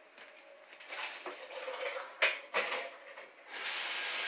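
Sweet corn being tipped out of the can into a colander in the kitchen sink, with clattering and two sharp knocks of the can. About three and a half seconds in, the tap is turned on and water runs steadily over the corn in the colander.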